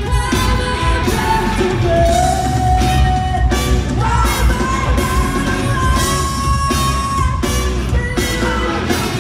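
Live rock band playing on stage, with electric guitars, bass and drums under a lead voice singing long held notes.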